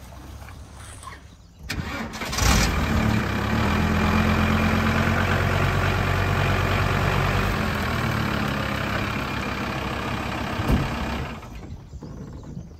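Volkswagen camper van's engine starting about two seconds in, then running steadily as the van is reversed off its levelling ramps. The sound cuts off shortly before the end.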